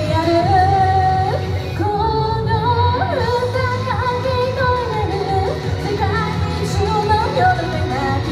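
Pop song with a woman's voice singing a melody over a steady backing track.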